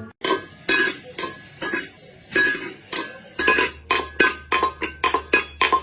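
Repeated clinking of a utensil against a dish, each strike ringing briefly at the same pitches. The strikes come faster in the second half, about three or four a second, over a faint low hum.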